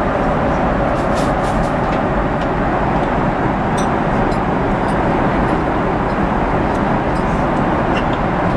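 Steady cabin noise of a Boeing 777-300 airliner in flight: a constant, even rush of airflow and engine noise. A few faint light ticks sound over it.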